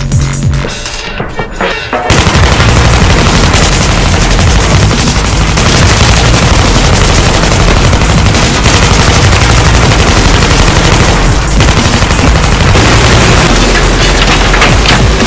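Rapid automatic gunfire over dubstep music. For the first two seconds there is mostly the music's bass, then dense, continuous firing starts and keeps going.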